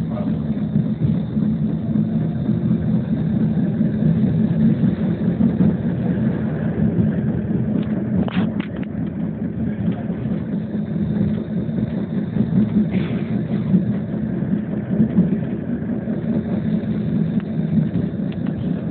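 Inside a MiNiN tram in motion: a steady rumble of the running gear and wheels on the rails, with a couple of short clicks along the way.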